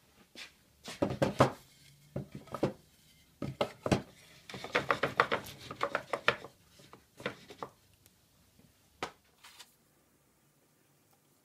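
Wooden boards knocking and clattering against one another and the workbench as they are handled and set into a wooden box frame: a string of sharp taps with a quick clatter in the middle, dying away near the end.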